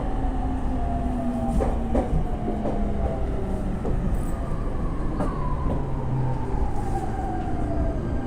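Running sound inside a JR E231-500 series electric commuter train. The traction motor whine falls slowly in pitch as the train slows, over steady wheel and rail rumble, with a few sharp clacks from the track.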